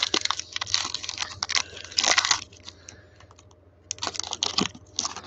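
Foil trading-card pack wrapper crinkling and tearing as it is ripped open: bursts of crackle, loudest about two seconds in, a short pause past the middle, then two more bursts near the end.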